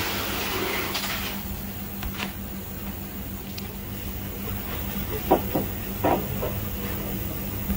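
A steady low electrical hum with a burst of hiss in the first second or so, then a couple of faint clicks and a few short light knocks about five to six and a half seconds in.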